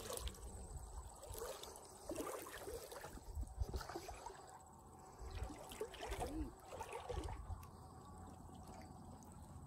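Faint river water sloshing and trickling as a wooden paddle moves through it, with soft, irregular splashes a second or two apart.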